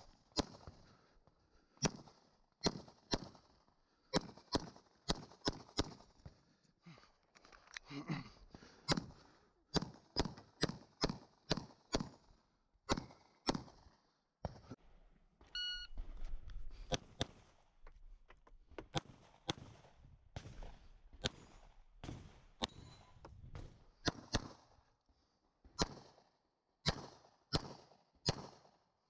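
Smith & Wesson M&P pistol with a red-dot sight fired in quick strings of shots, dozens in all, with a lull of a few seconds just past the middle filled with low rumbling noise.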